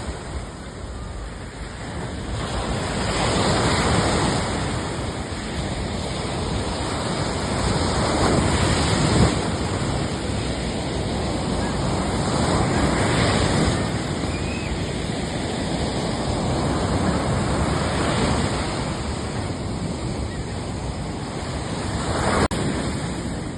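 Waves washing in and receding in swells every few seconds, with wind buffeting the microphone. A single sharp click near the end.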